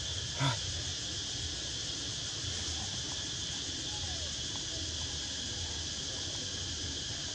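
Steady high-pitched chorus of insects buzzing, with one short sharp sound about half a second in.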